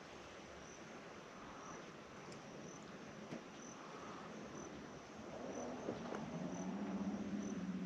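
Insects chirping, a short high chirp repeating every half second or so over a faint hiss. About five seconds in, an electric trolling motor starts up with a steady low hum that grows louder.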